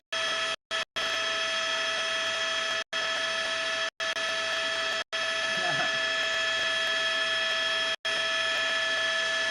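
A steady electronic whine made of several held tones over a hiss, cut by sudden brief drop-outs to dead silence several times, with a short wavering sound about halfway through.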